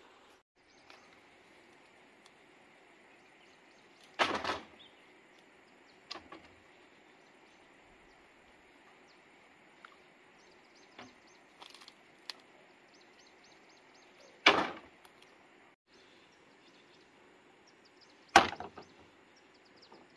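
Hollow bamboo poles knocking against a bamboo frame: three loud short clattering knocks, about four, fourteen and eighteen seconds in, with a few lighter taps between.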